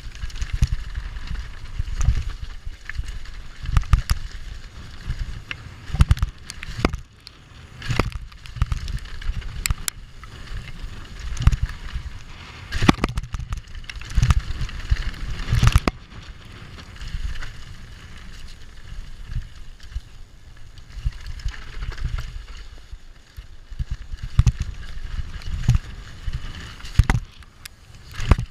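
A YT Tues downhill mountain bike at speed on a dirt trail: tyres rolling over dirt and rocks, the bike rattling, and frequent sharp knocks as it hits roots and bumps. Wind rumbles on the microphone under it all.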